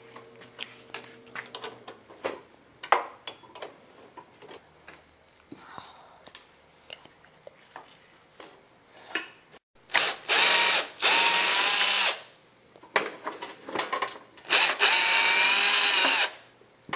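Power drill running in two spells of a few seconds each, starting about ten seconds in, its motor pitch wavering slightly under load, as fasteners come out of the mower. Before that, scattered clicks and knocks of tools on metal.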